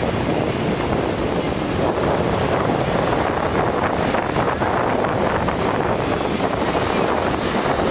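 Steady wind buffeting the microphone, over the wash of surf on the beach.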